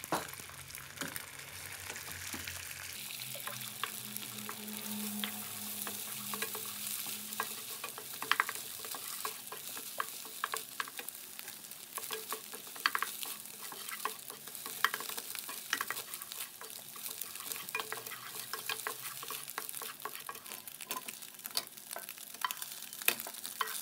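Beaten eggs frying in olive oil in a nonstick pan, with a steady sizzle. Many short sharp scrapes and taps come from a wooden spatula on the pan as the eggs are broken up and scrambled.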